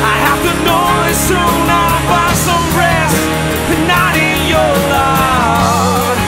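Indie rock band playing: sustained bass notes and occasional cymbal splashes under a melody line that bends in pitch and wavers near the end.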